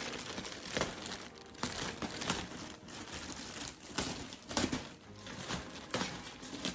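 Packaging crinkling and rustling as it is handled and pulled off during unpacking, in irregular bursts of sharp crackles.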